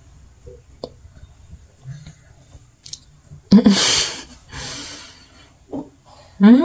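Faint clicks of a small glass jar being handled, with a loud rush of noise lasting under a second about halfway through. A voice starts up right at the end.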